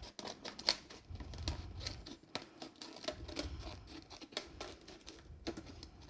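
Scissors snipping through a thin plastic soda bottle: a run of irregular cuts, about two a second, with the plastic crackling as it gives.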